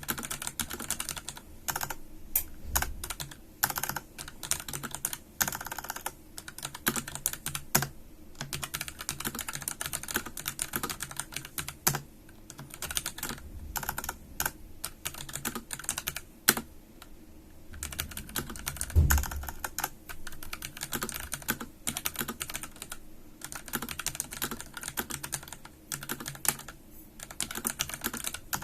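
Typing on a Pulsar PCMK tenkeyless 87-key mechanical keyboard: quick runs of key clicks broken by short pauses, with one heavier low thud about two-thirds of the way through.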